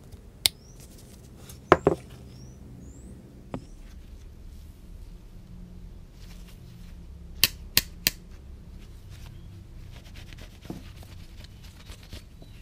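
Steel combination pliers with red handles being handled and worked, their metal jaws and joint clicking sharply several times: a loud double click near two seconds in and three quick clicks around the middle. A few faint, short, high rising chirps sound in the first few seconds.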